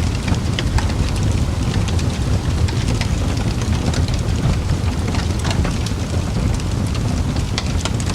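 Fireplace wood fire crackling: a steady low rumble with frequent irregular sharp pops and crackles.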